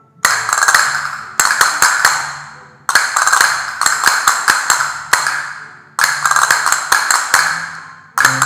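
Several pairs of castanets played together in a repeated rhythmic exercise: quick runs of sharp clicks, each phrase opening with a loud stroke and dying away, a new phrase starting about every one and a half seconds.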